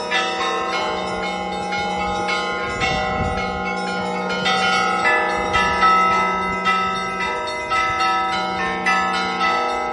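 Russian Orthodox church bells rung by hand in festive Easter ringing: several bells struck one after another in quick succession, their tones overlapping and ringing on over a steady low tone.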